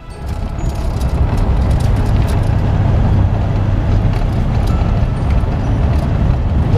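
Vehicle driving fast on a dirt road, heard from inside the cabin: a steady, loud low rumble of tyres and engine with road hiss, and scattered small ticks.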